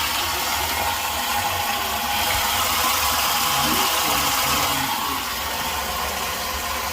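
Water rushing through a just-opened filling valve into an empty boiler heating system: a steady hiss that starts suddenly as the valve is opened.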